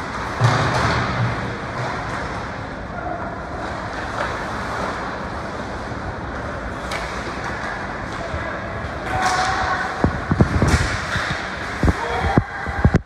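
Thumps and knocks of play during a team sports match over a steady din of background noise, with a cluster of sharp thumps near the end.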